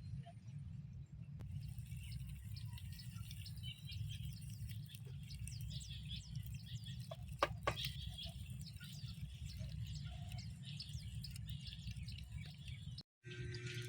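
Small birds chirping and twittering over a low, steady rumble, with two sharp clicks about halfway through.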